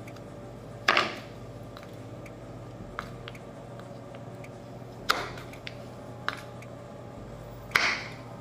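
Knife cutting through frozen strawberries on a wooden cutting board: three sharp chops, about a second in, around five seconds in and near the end, with a few faint knife taps between.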